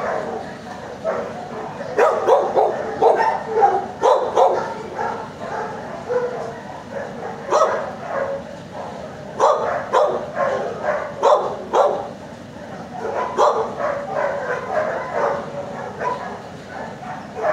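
Dogs barking in bouts in a shelter's kennel block, short sharp barks clustered several at a time with short gaps between.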